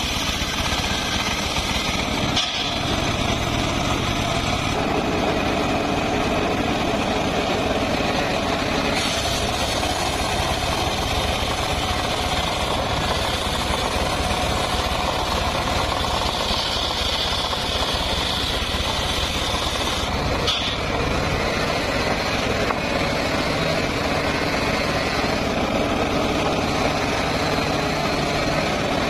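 Homemade engine-driven circular sawmill running, its large blade ripping lengthwise through a mahogany log: a steady engine drone under the hiss of the blade in the wood. The cutting sound shifts a few times as the cut goes on.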